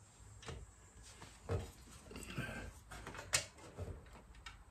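Faint, scattered clicks and light knocks of hands and tools fumbling at a small bolt, with the loudest knock about three and a half seconds in and a brief rustle just before it.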